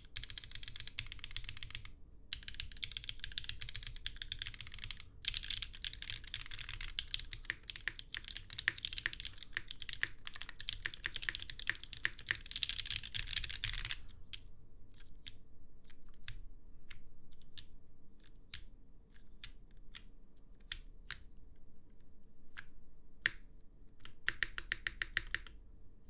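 Qneko mechanical keyboard with a full aluminium plate and gummy o-ring mount, fitted with lubed, broken-in Cherry MX Red switches and GMK Hammerhead Dark keycaps, being typed on. Fast continuous typing for about fourteen seconds, then slower separate keystrokes, with a short quick flurry near the end.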